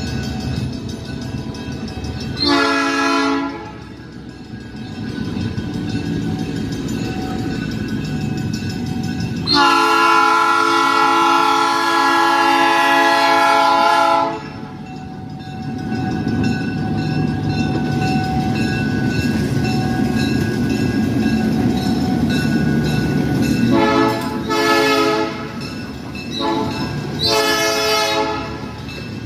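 EMD F7 diesel locomotive sounding its air horn four times: a short blast, a long blast of about five seconds, then two short blasts near the end. Between the blasts, the engine and the train's wheels rumble steadily as the locomotive and its freight cars roll past.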